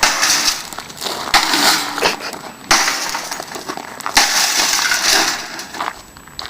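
Clattering and scraping of metal computer-case parts being taken apart, in several sudden bursts.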